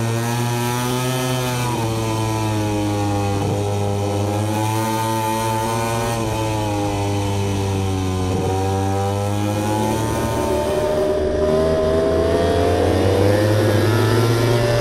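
MotoGP racing motorcycle engines at high revs. The pitch dips and climbs several times, then rises steadily over the last few seconds as the bike accelerates.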